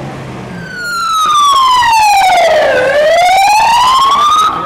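Emergency vehicle siren, loud: one long wail that comes in about half a second in, falls slowly in pitch for about two seconds, rises again, and cuts off near the end.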